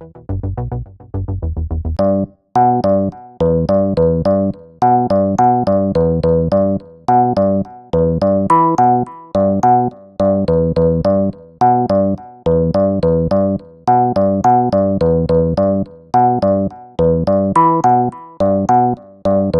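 SynthMaster One software synthesizer playing a preset as a sequenced riff from Riffler. Short pulsing low notes open it, then about two seconds in a keys-like patch starts repeating a pattern of quickly decaying notes and chords.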